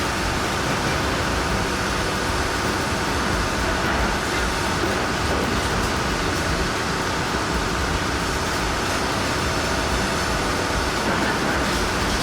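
Heavy machinery running: a steady, even mechanical noise with no distinct knocks or changes.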